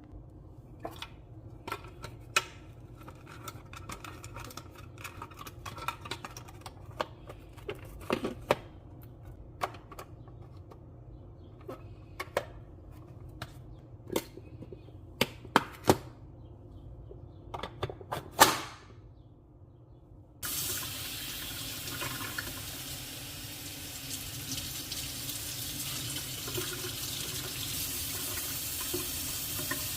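Scattered clicks and light knocks of things being handled, then about two-thirds of the way in a kitchen tap is turned on and runs steadily into the sink.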